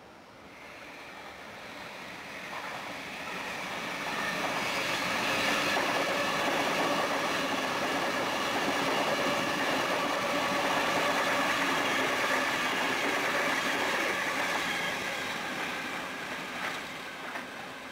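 Double-deck electric suburban train passing close by. The running noise of wheels on rails builds over about four seconds, stays loud while the carriages go past, then fades near the end.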